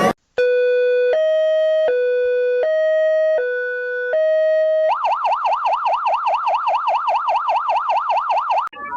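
Electronic emergency-alert siren. It starts as a hi-lo two-tone alternating between a low and a higher note about every three-quarters of a second. About five seconds in it switches to a fast warble rising and falling about five times a second, which cuts off near the end as organ music comes in.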